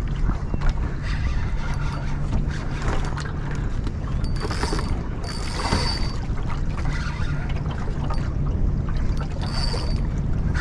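Spinning reel cranking under load as a hooked fish is played on a bent rod, with a few short high-pitched buzzes in the middle and near the end. A steady low rumble runs underneath.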